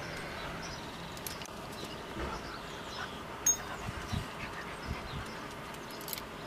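Outdoor ambience: a steady background hiss with faint bird chirps, a few soft low thuds and one sharp click about three and a half seconds in.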